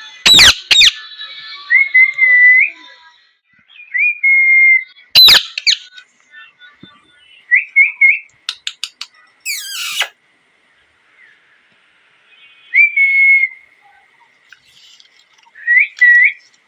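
Indian ringneck parakeet calling: short clear whistled notes at one pitch, some with quick wavering turns, broken by loud harsh screeches near the start, about five seconds in and again about ten seconds in, with quiet gaps between calls.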